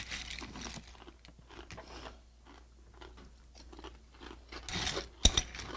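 Close-up crunching and chewing of crisp breakfast cereal (Pumpkin Spice Special K), soft and irregular at first, with a louder spell of crunching and a single sharp click near the end.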